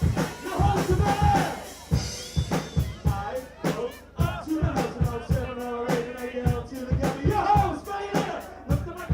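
Live rock band playing, with a drum kit keeping a steady beat on bass drum and snare under a melody line.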